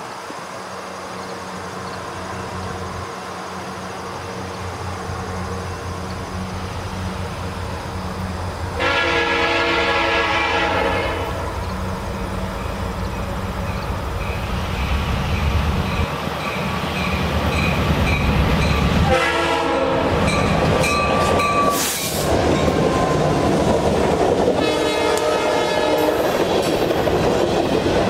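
Diesel freight locomotive approaching with its engine rumble building, sounding its horn three times: a long blast about nine seconds in, a short one around nineteen seconds and a long one from about twenty-five seconds, the close of the grade-crossing signal. From about halfway the train is passing close, with wheels clacking over the rail joints.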